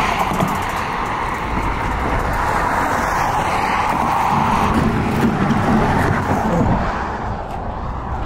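Interstate highway traffic: cars passing close by with steady tyre and road noise, swelling to its loudest past the middle and easing off near the end.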